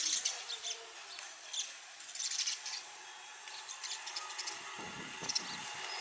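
House sparrows chirping in short, repeated bursts while fluttering against a car's side mirror, fighting their own reflection.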